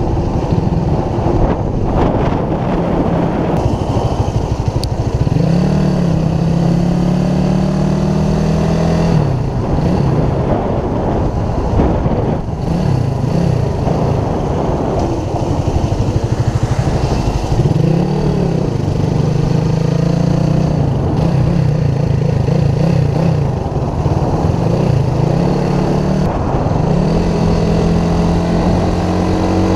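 Motorcycle engine running under way, its pitch climbing as it accelerates and dropping back several times as it shifts gears, over a steady rush of wind and road noise.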